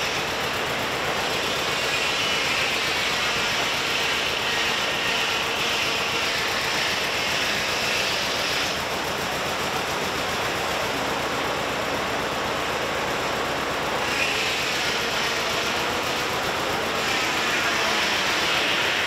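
Large circular sawmill running steadily. Its blade whines high through a log for the first eight or so seconds, runs without the whine for a few seconds while the log is turned, then cuts again near the end.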